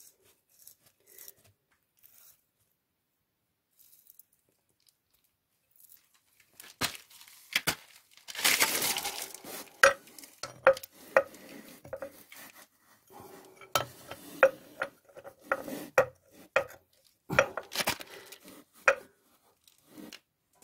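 Mostly quiet for the first six seconds, then a run of sharp metallic clinks and knocks, some ringing briefly: hand tools and metal parts handled against the cast-iron block of a Peugeot XD diesel engine during work on its oil pump thrust plug.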